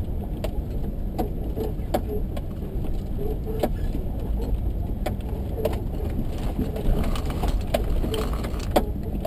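Jeep Grand Cherokee driving over rough grassy ground, heard from inside the cab: a steady low engine and road rumble with irregular knocks and rattles as it takes bumps.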